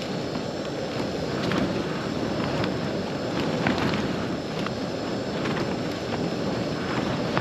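Strong gale-force wind buffeting a Hilleberg Jannu tent: a steady rush with the tent fabric snapping in many short, sharp cracks.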